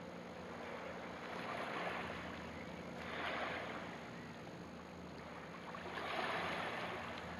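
Small waves of a calm sea washing onto a pebble beach, the wash swelling and fading about three times.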